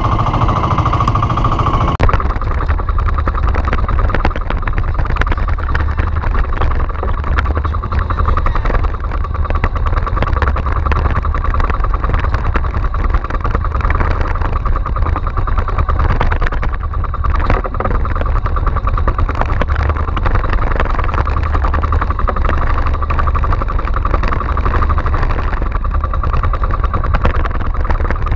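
Outrigger fishing boat's engine running steadily under way, a constant drone with no change in speed.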